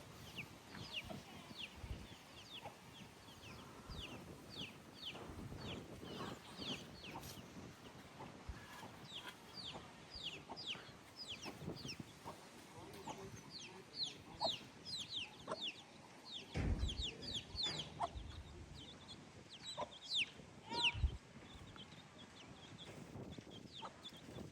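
Chickens calling: many short, high cheeps falling in pitch, repeated all through, with a few dull knocks.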